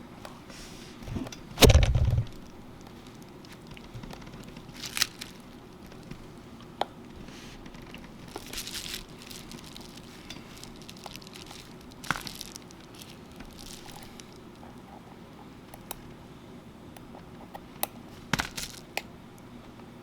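Light clicks, taps and scrapes of a small screwdriver and fingers working the screws at the bottom of an iPhone, with one louder dull thump about two seconds in.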